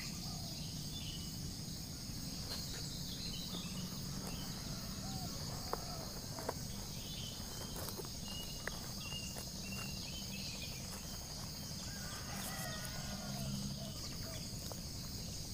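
Steady high-pitched chorus of insects, with scattered short bird chirps and a couple of faint clicks about six seconds in.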